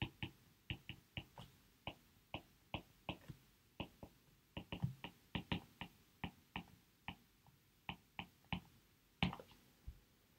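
Stylus tip tapping and clicking on a tablet screen while handwriting, a string of light irregular taps about three a second, with one louder tap near the end.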